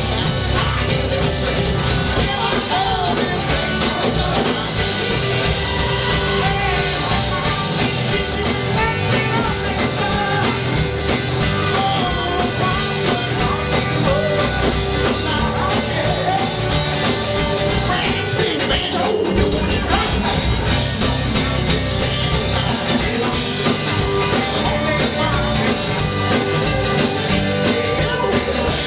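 Live band playing a rock song on electric and acoustic guitars, bass and drums, with a steady beat.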